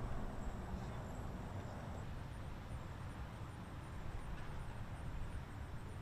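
Steady outdoor background noise, mostly a low rumble, with faint high-pitched chirps repeating a few times a second in the second half.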